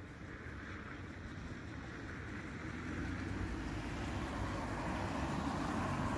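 A car approaching on the road, its engine and tyre noise growing steadily louder as it comes up to pass.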